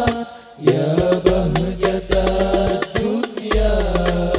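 Rebana frame drums beating in rhythm under a sung chant in Arabic; the music drops away for about half a second just after the start and then resumes.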